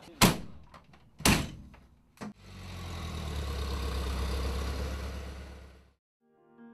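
Doors of a military vehicle slammed shut twice, about a second apart, then a click and the vehicle's engine running, swelling and then dying away just before the end.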